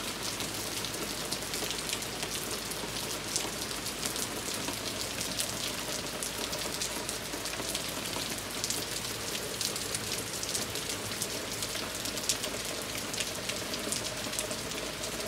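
Steady rain falling on a wet wooden deck and fallen leaves, with many single drops ticking sharply close by.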